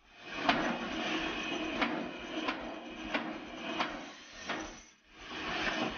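Tractor PTO-driven screw log splitter turning its threaded cone into a log: a steady mechanical hum with about five sharp cracks as the wood splits. The sound drops out briefly about five seconds in, then resumes.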